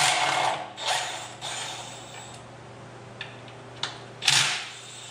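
Hand ratchet wrench clicking in three short spells as bolts are turned, over a steady low hum.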